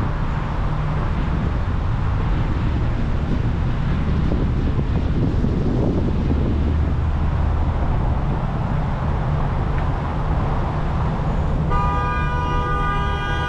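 Steady road and traffic noise from city driving, then a vehicle horn sounding a long steady blast near the end.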